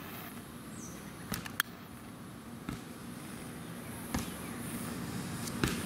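About five short sharp clicks, spread out, over steady low background noise: a long-nosed butane utility lighter being clicked and held to a Roman candle's fuse, which will not catch.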